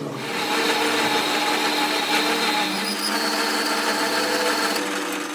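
Metal lathe running, its cutting tool shaving the inside of a steel ring in a steady scraping hiss over the machine's hum, with a thin high squeal in the second half; it cuts off abruptly at the end.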